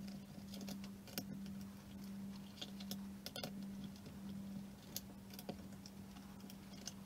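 Faint scattered clicks and taps of a small hex driver backing out the plastic skid plate screws on a Traxxas X-MAXX RC truck, with the screws and parts being handled, over a steady low hum.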